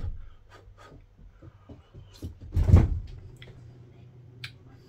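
A kitchen door banged as someone runs into it: one heavy thud about two and a half seconds in, the loudest sound here. Faint clicks and mouth sounds from eating off a spoon come before and after it.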